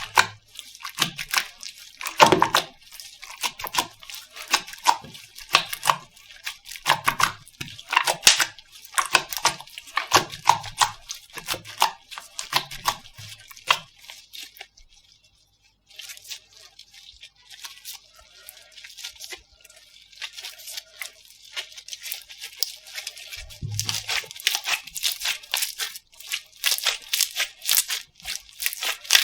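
Slime being squeezed and poked by hand, giving irregular sticky clicks and pops with some soft thuds. A short lull comes about halfway through, and then dense crackling starts near the end.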